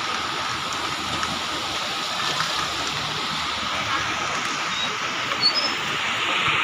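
Swollen river water rushing steadily after rain.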